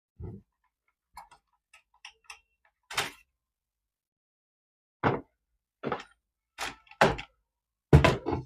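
Handling noises: a series of separate knocks and clicks, some faint and some sharp, spaced irregularly, growing louder and closer together near the end.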